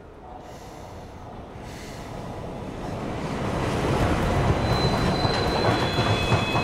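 Subway train pulling into a station, its rumble growing steadily louder as it comes in. A high, thin squeal joins it near the end as it slows to a stop.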